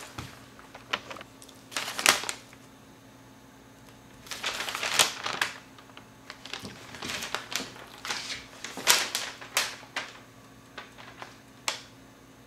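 A large sheet of drawing paper rustling and crackling as it is handled, in irregular bursts several times, with a faint steady low hum underneath.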